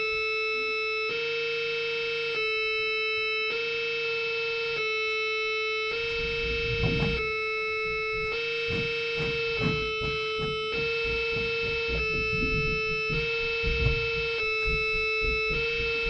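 Live improvised electronic music: a steady electronic drone held on one pitch, its upper overtones switching on and off in blocks about every second. Irregular low clattering noises join in about six seconds in.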